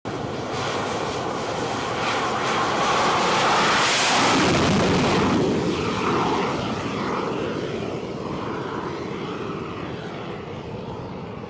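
Northrop Grumman X-47B's single turbofan jet engine at full power as it takes off from an aircraft carrier. The roar builds to its loudest about four seconds in, then wavers and slowly fades as the aircraft climbs away.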